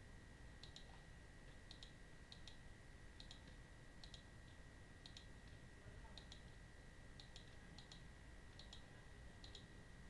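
Faint computer mouse clicks in quick pairs, about once a second, over a steady faint high whine. Otherwise near silence.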